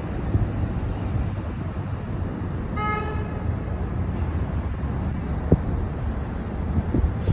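Steady low road rumble of a taxi cab driving through city traffic, heard from inside the cab, with one short car horn honk about three seconds in. Two brief thumps come later.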